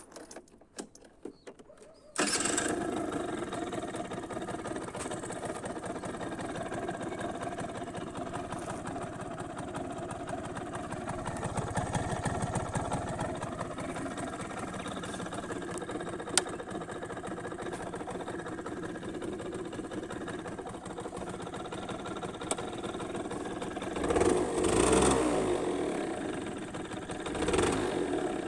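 Suzuki Hi-Up 50cc two-stroke scooter engine catching suddenly about two seconds in and then running, with a single sharp pop about halfway and two brief revs near the end. The engine runs with misfires, sneezes and pops, which the owner takes for a fault.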